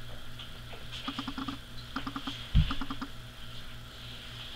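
Livestock guardian dog puppies chewing and tugging at a sock on a wooden floor: three quick runs of soft clicks and scuffles, with a louder thump about two and a half seconds in.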